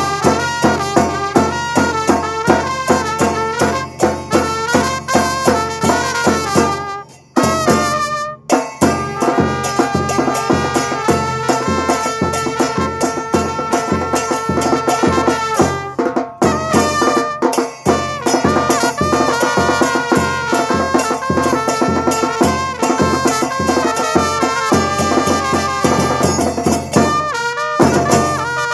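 Batucada percussion group playing a rehearsal arrangement: steady drum strikes under a pitched, horn-like melody. The band stops short for two brief breaks about seven and eight seconds in.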